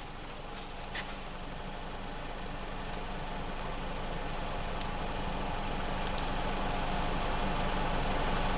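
A motor vehicle's engine running with a steady hum, growing gradually louder.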